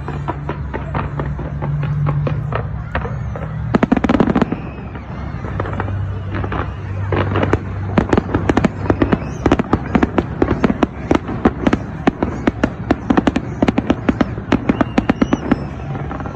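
Aerial fireworks bursting in rapid volleys of sharp bangs and crackles. A short cluster comes about four seconds in, and a long dense barrage follows through the second half.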